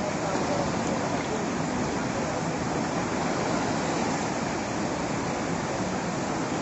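Flood-swollen river rushing: a steady, even noise of fast-moving water.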